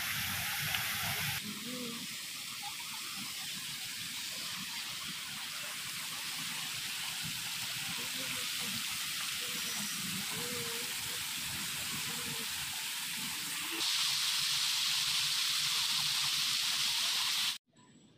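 Illuminated fountain jets spraying and splashing down into the pool, a steady hiss of falling water. It gets louder and brighter about 14 seconds in and cuts off suddenly near the end.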